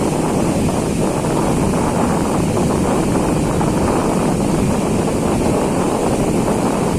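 Steady, loud rushing of a waterfall's falling water, with a low rumble.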